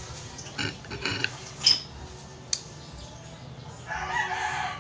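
A few sharp clicks and scrapes of a knife against clam shells and the plate during the first half. About four seconds in, a rooster starts crowing, a pitched call that falls slightly toward its end.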